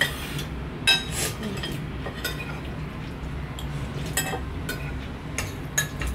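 Metal spoons clinking and scraping against ceramic bowls and plates as people eat, in irregular sharp clinks over a low steady hum.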